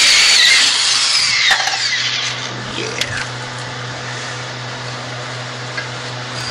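A handheld power cutter running at speed against the exhaust pipe metal. It is let off about two seconds in and spins down with a falling whine, leaving a steady low hum.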